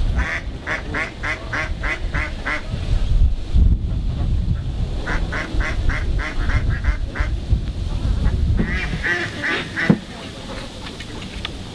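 Duck quacking in two quick runs of short quacks, three to four a second, over a steady low rumble that drops away about ten seconds in.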